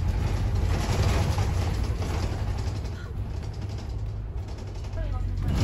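Ride on the upper deck of a double-decker bus in motion: a steady low engine and road rumble, with the window glass and fittings rattling and creaking over a rough ride.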